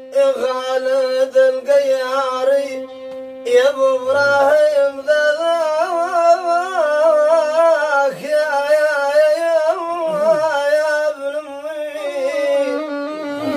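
A man singing an ornamented, wavering melody to a violin that sustains long steady notes underneath, with a brief pause a little under three seconds in.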